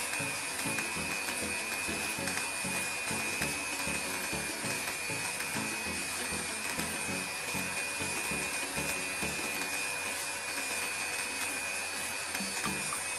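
Electric drill running steadily, with a steady high whine.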